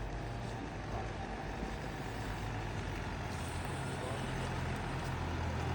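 A motor vehicle's engine running with a low hum, slowly growing louder as it approaches.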